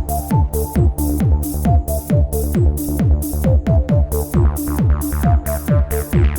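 Electronic dance-style background music: a steady kick-drum beat at a little over two beats a second, with crisp hi-hats and a synth melody.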